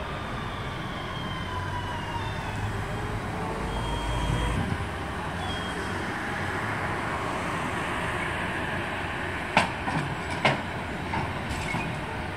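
Bombardier TVR rubber-tyred guided trolleybus rolling in on its tyres: steady rolling noise and low rumble with a faint whine that changes in pitch. Near the end come two sharp clunks about a second apart as it reaches the entry onto the central guide rail.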